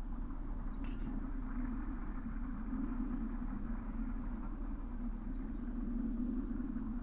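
A steady low rumble with a fainter hiss above it, even throughout, with no tune or rhythm, like an engine or machine running; a brief faint click about a second in.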